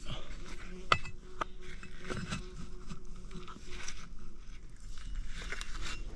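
Bricklaying sounds: sharp knocks of a trowel tapping bricks into cement mortar, the loudest about a second in, with scraping between.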